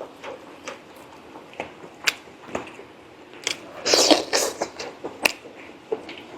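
Close-miked chewing of braised pork leg: wet mouth sounds and scattered smacks, with a louder flurry about four seconds in.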